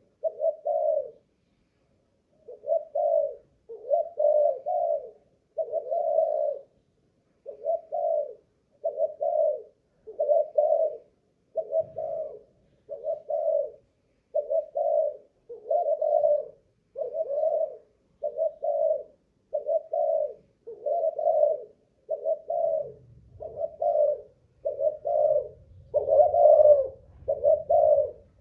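Spotted dove (Malaysian cooing strain) cooing in a long, steady run of short coos, about one a second, after a brief pause near the start.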